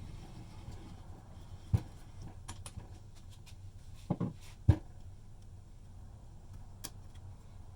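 A few sharp knocks and light clicks over a low steady hum: one knock early on, then a quick cluster of knocks a little past halfway, the last of them the loudest.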